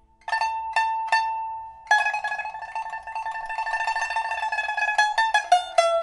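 Solo pipa played: three single plucked notes, then a long rapid tremolo on a high note from about two seconds in, stepping down through lower notes near the end. The instrument is a 1999 Man Ruixing pipa of old huangtan wood, freshly fitted with a new soundboard and frets.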